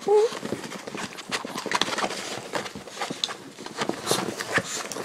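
A small chihuahua play-fighting with a person's hand on a rug: a run of quick scuffles, pats and taps from paws and hand, with a short rising yelp right at the start.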